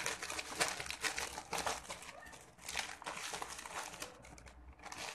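Clear plastic packaging bag crinkling and rustling in irregular crackles as it is handled and pulled open by hand, easing off briefly near the end.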